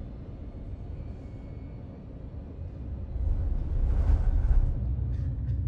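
Low, steady drone of an airliner in flight heard from inside the cabin, swelling louder about three seconds in.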